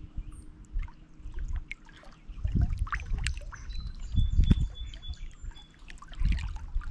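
Small lake waves lapping and splashing against shoreline rocks, in uneven surges, the louder ones about two and a half, four and a half and six seconds in. Birds chirp thin high notes in the background.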